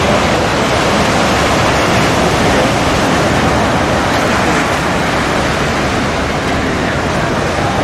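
Ocean surf breaking on a sandy beach: a steady, loud wash of noise with no distinct events.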